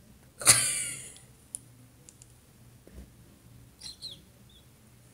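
A short, high-pitched squeal from a person's voice about half a second in, dropping slightly in pitch as it fades. Two faint, brief high sounds follow near the end.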